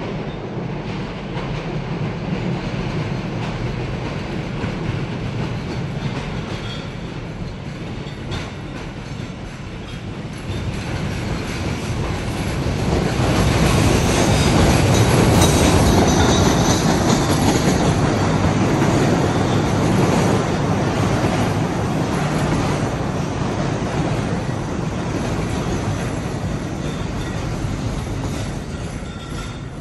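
Budd Company 2600-series CTA rapid-transit train pulling into a station. Its running noise builds as it approaches and is loudest as the front car passes, about halfway through, then eases gradually as the cars slow along the platform.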